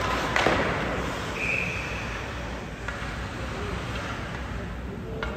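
Ice hockey play in an arena: a sharp knock about half a second in, then a few fainter clicks, over steady arena noise.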